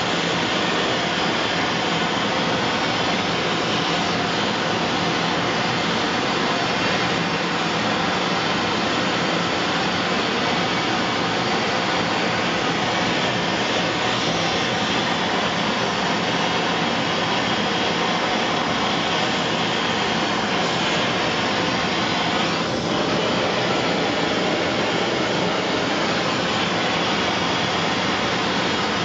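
Propane torch burning steadily with a continuous rushing hiss as it heats a copper locomotive boiler for silver soldering (silver brazing).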